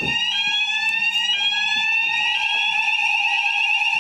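Electronic fire alarm sounders going off during a weekly alarm test. One holds a steady tone while a higher tone rises in sweeps that restart about once a second.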